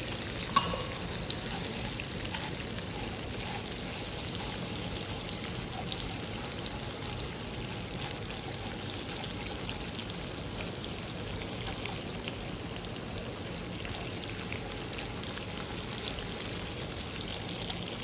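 Margarine and sugar sizzling steadily in a pan over a flame, with small crackles and pops and one sharper tick about half a second in.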